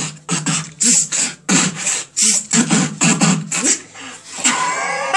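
Human beatboxing: a fast mouth-made drum beat of kick and snare strikes, made into cupped hands over a steady low hummed note. About four seconds in there is a drawn-out pitched vocal sound.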